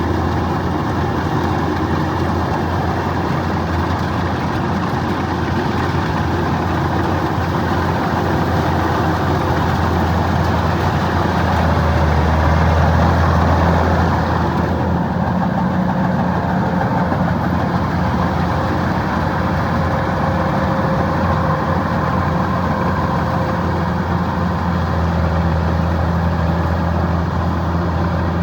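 Kubota DC-105X combine harvester running under harvesting load, a steady diesel drone. It swells briefly about twelve seconds in, and some of the higher hiss drops away soon after.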